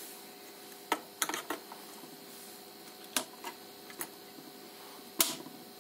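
Sharp plastic clicks and knocks from a plug-in lamp holder with a test bulb being handled and pushed into a wall socket on an electrical panel. There is one click about a second in, then a quick run of several, then single clicks around three and four seconds, and the loudest near the end, all over a faint steady hum.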